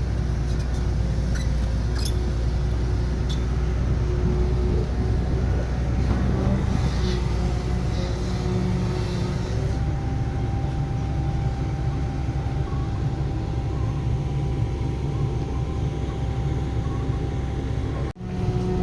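Diesel engine of heavy construction machinery running steadily, a low rumble with a few sharp knocks in the first few seconds; the sound drops out for an instant near the end.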